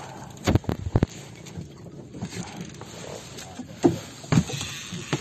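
A few loud, sharp knocks, three close together in the first second and two more about four seconds in, over a steady wash of wind and water noise aboard a small wooden outrigger boat.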